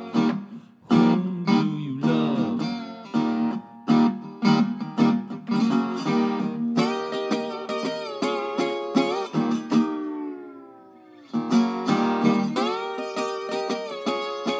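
Metal-bodied National resonator guitar playing an instrumental break: rhythmic strummed chords, then held, ringing chords. About ten seconds in, the notes slide down in pitch and die away before the strumming picks up again.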